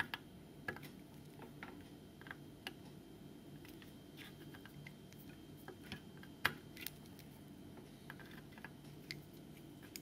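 Soldering iron tip working the solder joints on a circuit board's pads: faint, scattered small clicks and ticks, one louder about six and a half seconds in, over a low steady hum.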